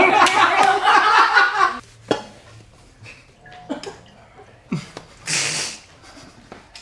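A group of people laughing loudly for a couple of seconds, then it goes quiet apart from a few soft knocks and a brief hiss.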